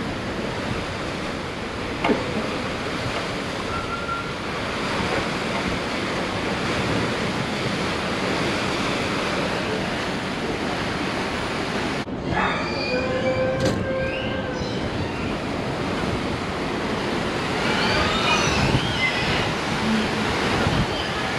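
A 1952 steamship docking, heard from its stern: a steady rumbling, churning noise, with a sudden change about halfway through after which brief high squeals come and go.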